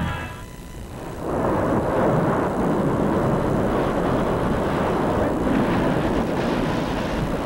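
Steady roar of breaking ocean surf, coming in about a second in and running on evenly.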